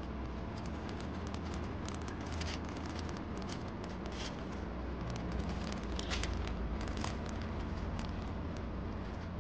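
Clear plastic packaging sleeves crinkling and crackling in the hands, many small irregular crackles over a steady low rumble.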